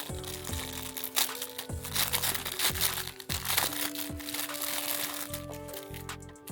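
Background music with held notes and a bass line, over the crinkling and crackling of plastic packaging being handled and opened.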